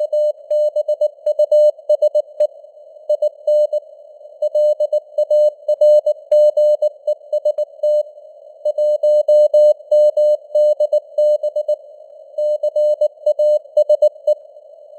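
Morse code (CW) sent as a single tone of about 600 Hz, keyed on and off in dots and dashes at 19 words per minute, with short pauses between words. A narrow band of simulated radio hiss around the tone fills the gaps.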